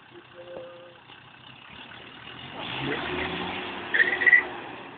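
Land Rover Defender's engine revving and pulling under load as the 4x4 drives through a stream, growing louder from about two and a half seconds in. There is a loud, sharp peak about four seconds in.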